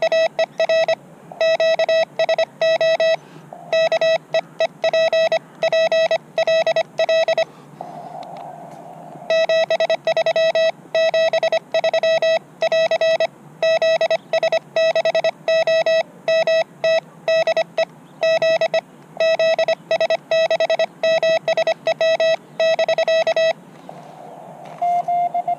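Morse code (CW) tone from a portable ham radio transceiver, one steady pitch keyed in dots and dashes. It comes in two long runs with a pause of about two seconds between them. Near the end a fainter, slightly higher Morse tone starts.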